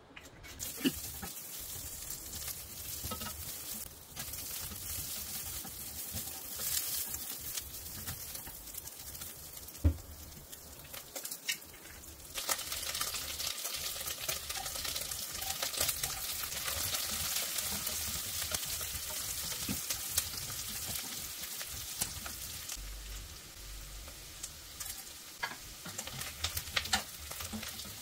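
Pieces of boiled pork sizzling in hot oil in a pot. The sizzle grows louder about twelve seconds in as chopped onion goes into the oil. A few sharp clicks and knocks come from the cooking utensils against the pot.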